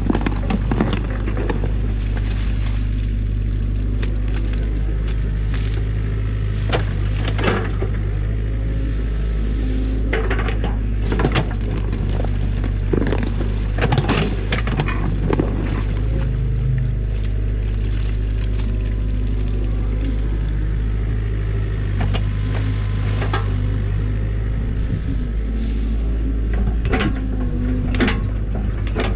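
Tracked mini excavator's diesel engine running steadily under hydraulic load, with repeated knocks and scrapes as the steel bucket digs through mud and sticks.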